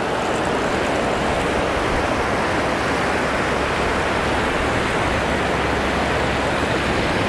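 Ocean surf breaking and washing up the beach, a steady even rush.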